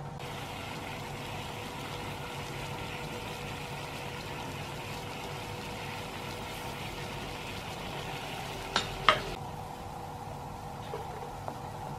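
Water boiling hard in a saucepan on a gas stove, a steady bubbling hiss, with two sharp clinks close together about nine seconds in.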